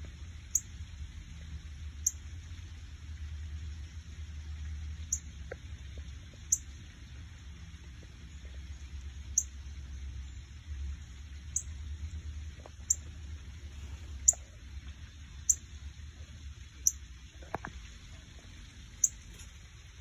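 A small songbird giving short, sharp, very high chip calls, about a dozen of them spaced a second or two apart, over a steady low hum.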